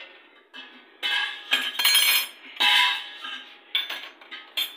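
A spoon clinking and scraping against a bowl in several separate strokes as a cucumber salad is mixed.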